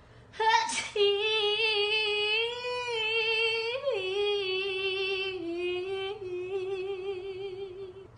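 A single female voice singing unaccompanied, holding long notes with vibrato after a short opening note; the pitch bends and slips down a little about four seconds in.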